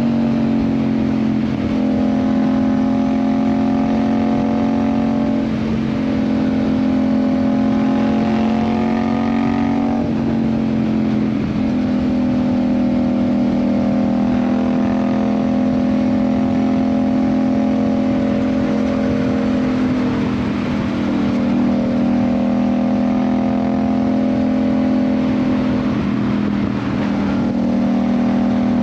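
Yamaha MT-07's 689 cc parallel-twin engine through an Ixil aftermarket exhaust, running at steady cruising revs while riding. Its pitch dips briefly a few times and then picks up again.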